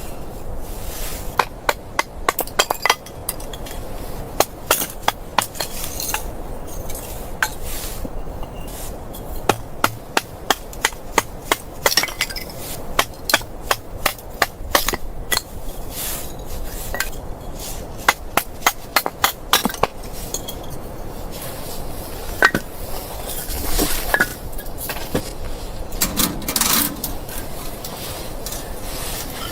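Wood being struck: a series of sharp knocks and taps in irregular bursts, some strokes close together, over a steady background noise.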